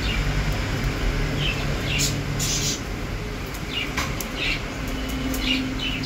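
Budgerigars chirping in short scattered calls, about five over a few seconds, over a steady low hum.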